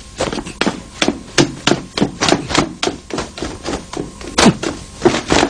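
Quick footsteps on wooden boards, a steady run of about three knocks a second.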